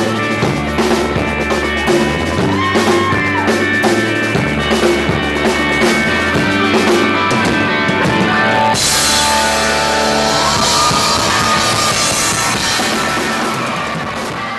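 Rock band playing live, with electric guitars, bass and drum kit driving a steady beat. About nine seconds in, the beat gives way to a steady high wash over held chords, and the sound begins to fade near the end.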